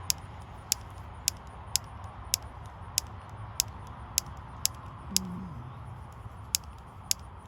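Sharp, dry clicks from an insect, about two a second, each one brief, with a few slightly longer gaps.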